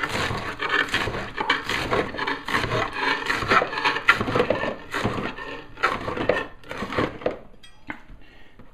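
Chef's knife chopping romaine lettuce on a cutting board: a rapid run of blade strokes knocking on the board, stopping shortly before the end.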